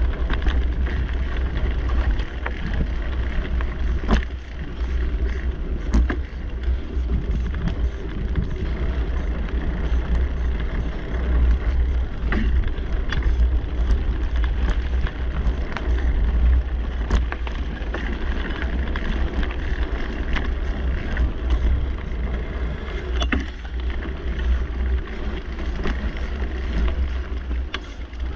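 Mountain bike riding along a dirt singletrack: steady tyre and ride noise with a deep rumble of wind on the microphone, and scattered sharp clicks and rattles from the bike over bumps every few seconds.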